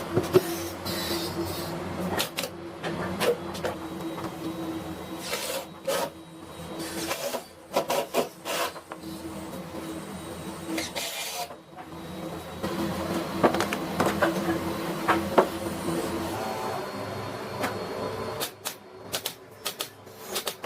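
Woodworking power tool's motor running with a steady hum, under repeated sharp knocks and clatter of wooden boards being handled and cut, thickest near the end.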